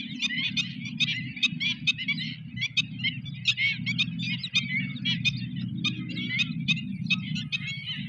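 A dense chorus of many small birds chirping and twittering all at once, in quick overlapping calls. A steady low hum runs underneath.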